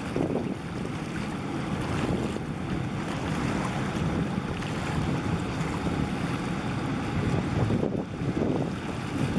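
Wind buffeting the microphone over choppy harbour water, a low uneven rumble with the wash of water, as a large container ship passes close by; no distinct engine tone stands out.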